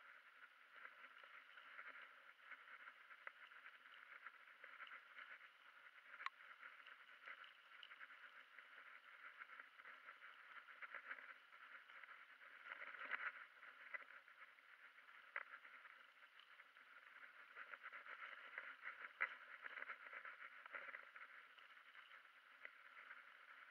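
Faint, muffled rattling and crackling of a road bike rolling over a rough dirt track, with a few sharper knocks from bumps.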